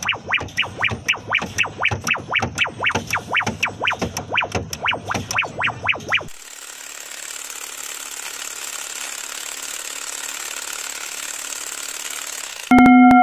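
Rapid, even mechanical clicking, about four clicks a second, for about six seconds. It then gives way to a steady hiss with a faint low hum. Near the end a loud ringing tone with several steady pitches begins.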